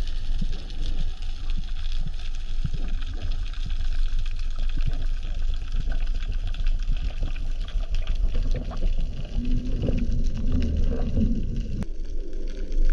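Underwater sound of a diver and a speared bonito: a constant deep rumble of moving water with a dense crackle of small clicks and bubbles. About ten seconds in, a steady droning hum rises for a second or two, and the rumble drops away sharply near the end.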